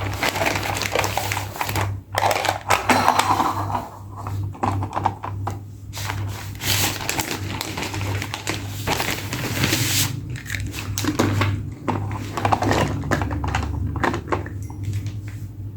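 Hands unboxing toy cars: plastic packaging crinkling and rustling with many small sharp clicks and taps, over a steady low hum.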